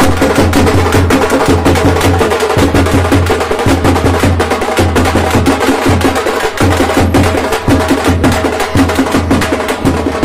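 Loud, fast percussion music for a tiger dance: rapid drum strokes over a deep, pulsing low beat.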